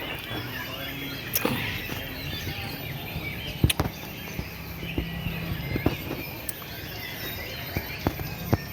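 Many caged contest songbirds singing and chirping at once, a dense overlapping chatter of calls, over a low steady murmur, with a few sharp clicks.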